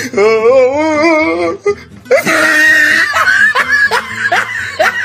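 A woman laughing hard and uncontrollably. First comes a long, wavering, high laugh, then a breathy shriek about two seconds in, then a quick run of short laughing bursts.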